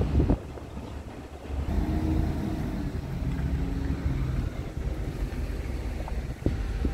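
Low steady rumble of an idling truck engine with wind on the microphone, and two short knocks near the end.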